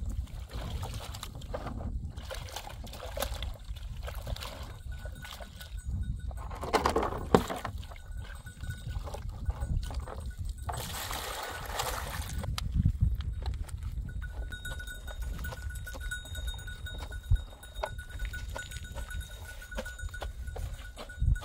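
Laundry being washed by hand in a plastic tub of water: sloshing and wringing of wet clothes, with water poured out of the tub in a rush about eleven seconds in.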